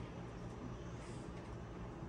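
Quiet room tone with a steady low hum and a faint, soft rustle about a second in.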